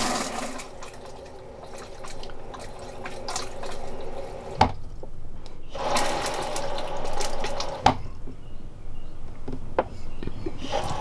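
Flush water rushing into the bowl of a Thetford Aqua-Magic Residence RV toilet, in two spells that are each cut off by a sharp click as the flush is let go. The toilet drips at the back whenever it is flushed, which the owners put down to a leaking seal in its water pump.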